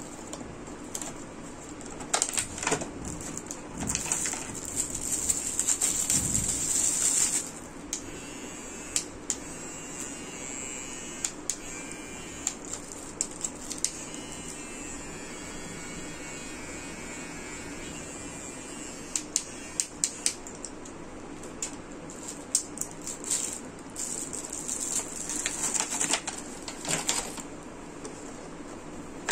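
Cardboard box and plastic packaging being handled: rustling and sliding with scattered clicks and taps, the rustling loudest a few seconds in and again near the end.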